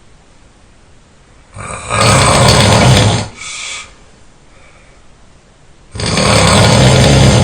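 A person snoring: two long, loud snores about four seconds apart, the first followed by a shorter, quieter breath.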